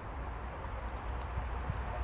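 Wind buffeting the microphone: a steady low rumble with a faint hiss over it.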